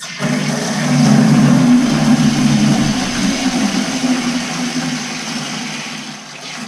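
Water and air rushing out of an opened valve on a Navien tankless water heater as mains cold water is forced through its coil to clear a suspected clog or airlock. It starts suddenly as a loud rough rush and slowly dies down.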